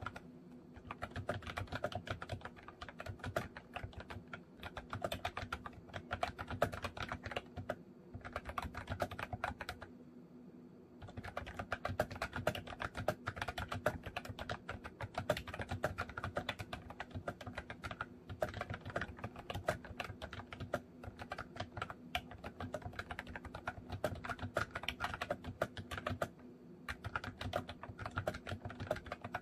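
Continuous fast typing on a MOFii Candy retro-style keyboard: a dense stream of key clicks, broken by two short pauses about ten and twenty-six seconds in, over a faint steady hum.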